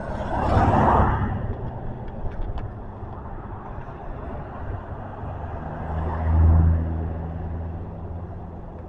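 Street traffic: a car passes about a second in with a rush of tyre and engine noise, then a second vehicle with a low engine hum passes around six seconds in.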